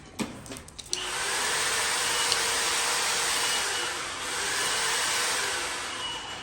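A machine starts about a second in and runs with a loud, steady rushing noise, like a blower or vacuum. It dips briefly midway, then fades near the end. A few light knocks come before it.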